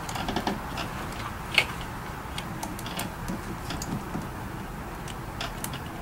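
Scattered light clicks and taps of plastic and metal as a car's ignition coil is worked loose from its spark plug well, with one sharper click about a second and a half in.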